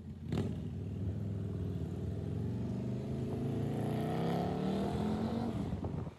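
Motorcycle engine accelerating, its pitch rising steadily for about five seconds, then cutting off suddenly near the end.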